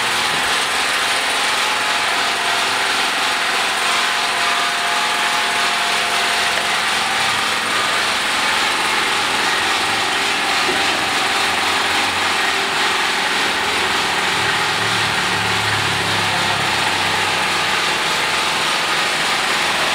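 A small engine running steadily, an even mechanical noise with faint steady hum tones that does not change in level.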